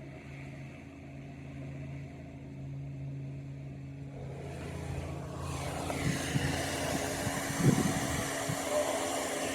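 A motor vehicle's engine running with a steady low hum; about five seconds in a louder, wider rush of noise builds and holds, with a few short knocks.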